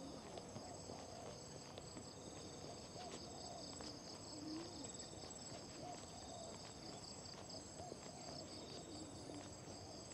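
Jungle insect chorus, steady high trilling from several insects at once, with another trill pulsing on and off every second or two.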